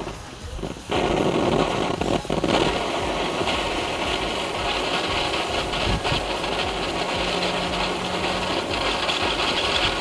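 Small category 1 'Golden Flower' firework fountain catching about a second in, then spraying sparks with a loud, steady hiss.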